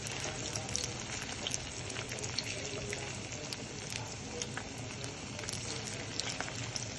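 Puffed-rice (kurmura) cutlets frying in a pan of hot oil: a steady sizzle with many small crackles.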